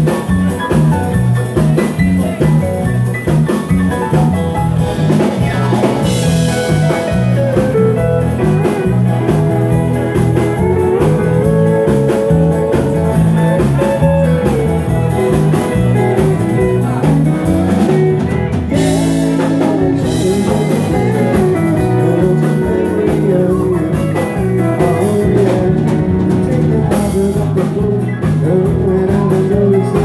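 Live band playing an upbeat dance number: drum kit, electric guitar and keyboards over a steady beat, loud throughout.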